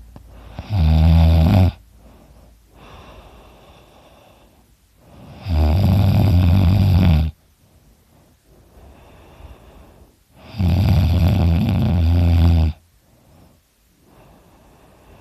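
A sleeping man snoring very loud: three loud snores about five seconds apart, the first about a second long and the others about two seconds, with quieter breathing between them.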